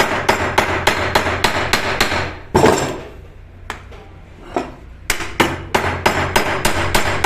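Hammer blows setting the rivets on a motorcycle clutch housing's plate: quick, even metal strikes about four a second, breaking off for a couple of seconds midway with a few single taps, then going on again.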